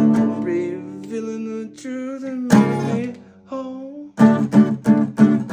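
Acoustic guitar strummed as the outro of a song, its chords ringing. A wavering sung line lies over it in the first couple of seconds. It ends in quick repeated strums, about five a second, in the last second and a half.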